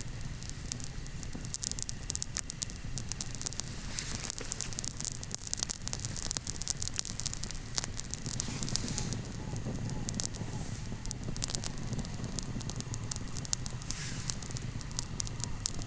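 Wood campfire crackling and popping: irregular sharp snaps over a steady low rush of the flames.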